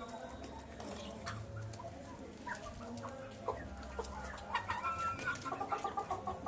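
Young chicks clucking and cheeping while they feed, with many short sharp taps of beaks pecking at the food. The calls come thicker in the second half.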